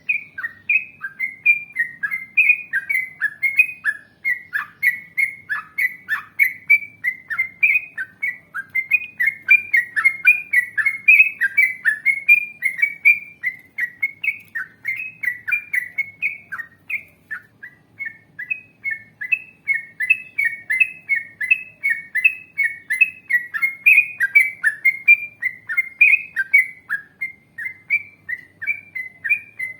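Yellow-vented bulbul (trucukan) singing a long, unbroken run of short chirpy whistled notes, about three a second, a bird-song training recording played to prompt other bulbuls to answer.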